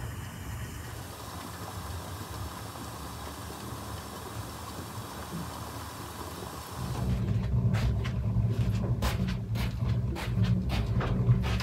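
Tea pouring from a teapot into small glass tea glasses, a steady trickle. About seven seconds in it gives way to a louder low rumble, like wind on the microphone, with a string of sharp clicks and knocks.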